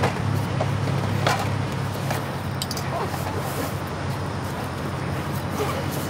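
Motor vehicle running with a steady low engine drone and road noise, with scattered small clicks and rattles.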